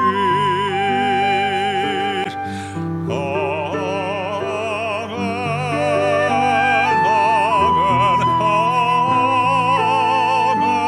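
A slow hymn sung by a solo voice with a wide vibrato over held accompaniment chords, with a short breath between phrases about two and a half seconds in.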